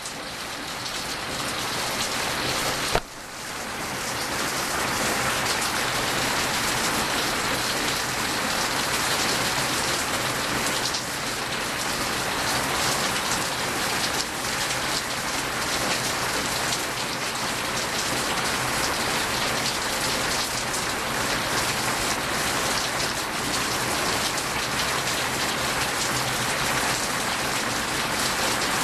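Heavy rain pouring down, a dense steady hiss of raindrops on surfaces. About three seconds in there is a single sharp click, after which the rain sound dips briefly and comes back steady.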